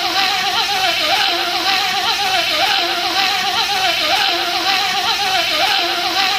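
A man's voice imitating a bee's buzz: a steady droning buzz that wavers in pitch, repeated as a loop about every one and a half seconds.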